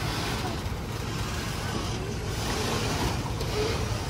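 An engine idling with a steady low rumble, over outdoor background noise.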